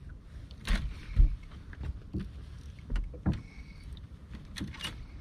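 Water lapping against a bass boat's hull under a low rumble, with several short, sharp knocks against the boat.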